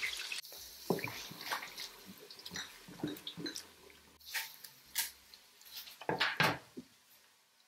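Sliced onions sizzling in hot oil in a pot, the sizzle dropping away about half a second in, then a wooden spatula stirring them, giving scattered short scrapes and knocks against the pot.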